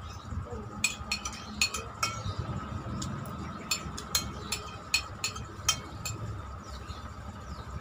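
Metal spoon clinking and scraping against a glazed ceramic plate while noodle soup is eaten, in short irregular clinks, sometimes two or three close together.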